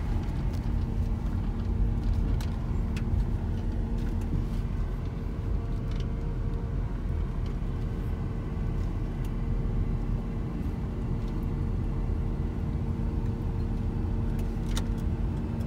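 Volkswagen Transporter T4 camper van driving slowly, heard from inside the cab: a steady low engine and road rumble with a constant drone, and a few faint ticks or rattles.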